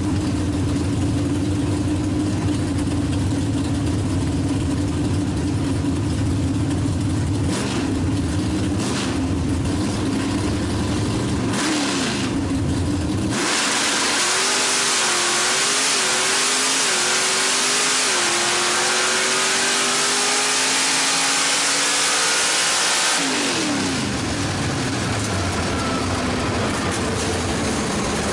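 Drag race car's engine, heard from inside the cockpit: a lumpy idle with a few short revs while staging, then a full-throttle launch about halfway through. The engine pulls hard for about ten seconds on a quarter-mile pass (8.90 s at 150 mph), its pitch climbing and dropping back at several gear changes. It then lifts off, and the pitch falls away as the car coasts.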